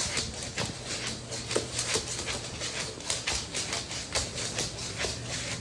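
Green iguana making repeated short, breathy hissing bursts, several a second.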